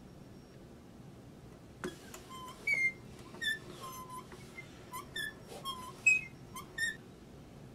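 A metal fitting on a cigar box diddley bow squeaking as it is turned with a wrench: about nine short squeaks at shifting pitches over some five seconds, after a single click about two seconds in.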